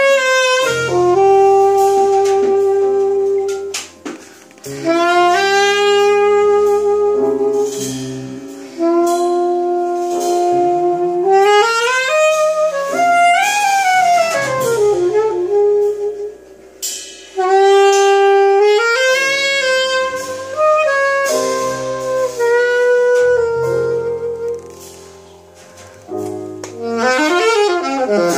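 Jazz quartet playing a slow ballad: alto saxophone carries the melody in long held notes and sliding phrases over piano, electric bass and drums, with short breaths between phrases.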